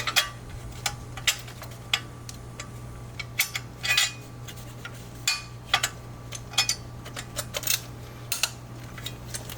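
Metal parts and hand tools clinking and tapping during turbo installation work in an engine bay: scattered sharp clicks, a few close together, over a steady low hum.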